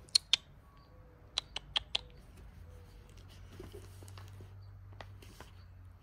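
A string of sharp clicks close to the microphone: two right at the start, four quick ones about a second and a half in, and two more near the end, with faint rustling between them.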